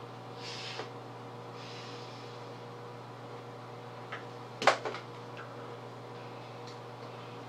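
Hands and a paper plate working through shaving cream: soft rustles in the first two seconds, then a sharp slap just past the middle with a few lighter clicks around it, over a steady electrical hum.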